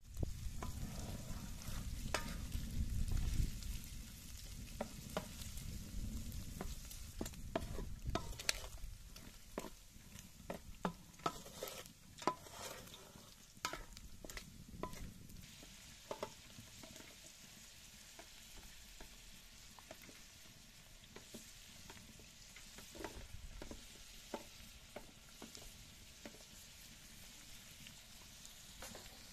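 Diced sheep tail fat sizzling as it renders in a large aluminium pan, stirred with a wooden spatula that scrapes and knocks against the pan, the knocks thickest in the middle. A low rumble sits under the first several seconds.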